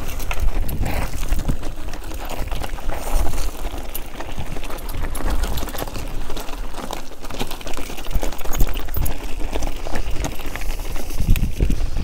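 Wind buffeting the microphone on a moving bike, with a steady low rumble and many irregular clicks and rattles as it rides over a rough track.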